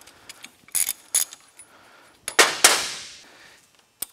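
Metal clinks from a socket, axle nut and washers coming off an ATV front wheel hub: two sharp clinks about a second in, then a louder clank that rings out for about a second, and a last tick near the end.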